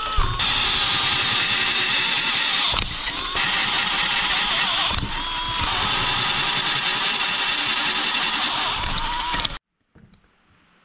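Electric drill running under load, boring pilot holes out with a 1/4 inch bit. Its motor whine sags in pitch several times as the bit bites, with brief let-offs of the trigger, and the sound cuts off suddenly near the end.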